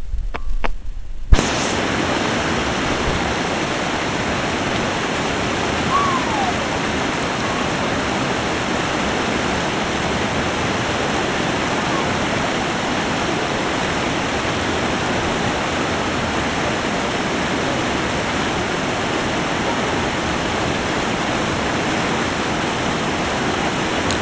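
Rushing water of a river waterfall and the rapids below it: a steady, even rush of noise that starts abruptly about a second and a half in, after a few sharp clicks.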